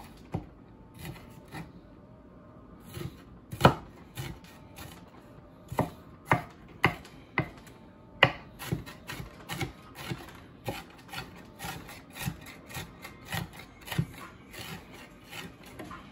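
Kitchen knife chopping diced onions on a wooden cutting board: irregular knocks of the blade on the board, sparse for the first few seconds, then a few per second.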